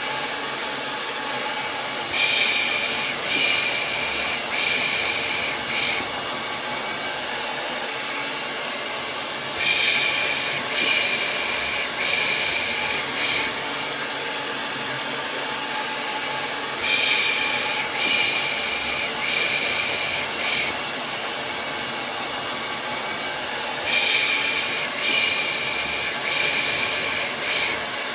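Hair dryer running steadily, with a person shushing 'pış pış' to lull a baby to sleep: sets of four short shushes about every seven seconds, four sets in all.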